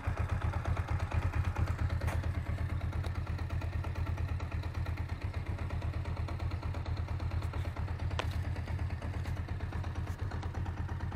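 Kawasaki GPZ500's parallel-twin engine idling steadily, with a sharp click about eight seconds in. The owner hears a knock from the gearbox whose cause he cannot find.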